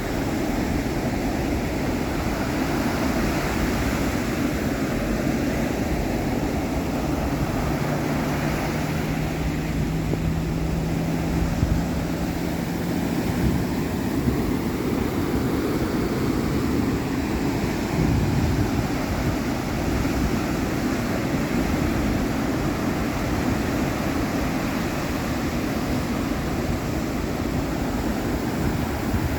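Ocean surf washing and breaking in a steady, continuous rush. A low steady hum joins in for several seconds a quarter of the way in, then fades out.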